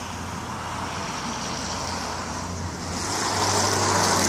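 Road traffic noise: a vehicle's tyre hiss swelling as it passes, loudest near the end, over a steady low hum.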